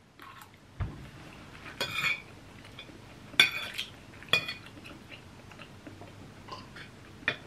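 Metal fork and spoon clinking and scraping on a ceramic dinner plate while eating, three sharp clinks with a brief ring about two, three and a half and four and a half seconds in. A dull thump comes about a second in.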